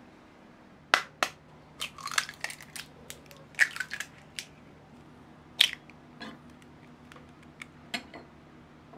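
Eggs being cracked open over a glass bowl: a series of sharp taps of shell striking a hard edge, with crackles as the shells break and are pulled apart.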